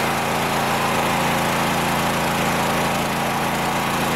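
Portable generator engine running steadily.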